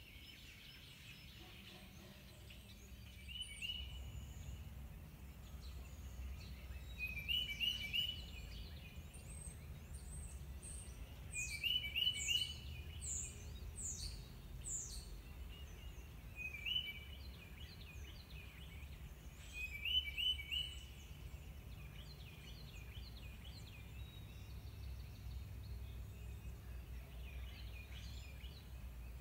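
Wild birds calling: a short phrase of several quick notes repeated every few seconds, and a run of high calls that sweep downward in pitch around the middle, over a faint low steady rumble.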